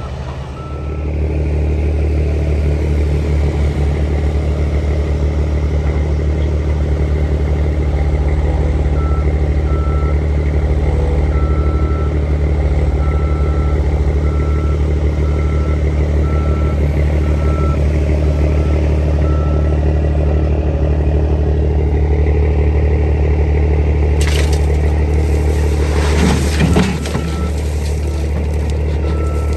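Heavy diesel machinery running steadily at work, with a backup alarm beeping at an even pace for several seconds midway and again near the end. About three-quarters of the way through there is a short burst of scraping noise.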